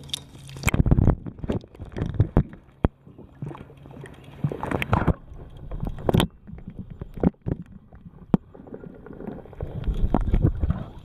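Pond water sloshing and gurgling around a waterproof camera held underwater, muffled, with irregular splashes and sharp knocks. The loudest surges come about a second in and again near the end, as the camera goes into and comes out of the water.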